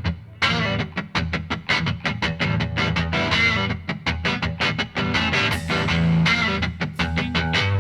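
Background rock music led by a guitar playing quick picked notes at a steady beat.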